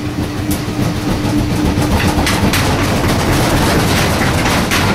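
Front-loading washing machine running and shaking violently: a loud, steady rumble with irregular rattling knocks as the cabinet shudders against the floor.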